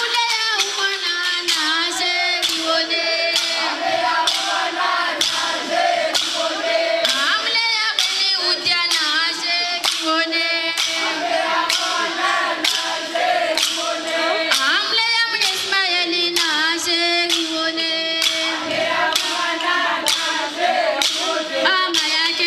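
A group of women singing in chorus, accompanied by steady rhythmic clacks of hand-held wooden clappers, about two a second.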